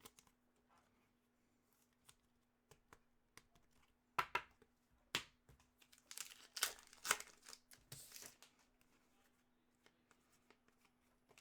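A pack of 2020-21 Upper Deck Series 2 hockey cards being torn open and the cards handled: scattered crinkles of the foil wrapper and soft card clicks, busiest from about four to eight and a half seconds in. A faint steady hum runs underneath.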